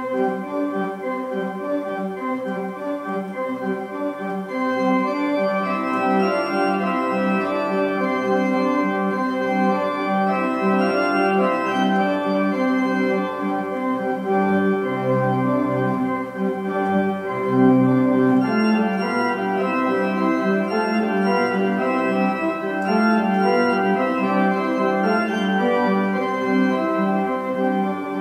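Kenneth Jones pipe organ (built 1989) playing a French-style carillon: a quick repeating figure in the left hand under a slower melody. Deep pedal notes come in about halfway through.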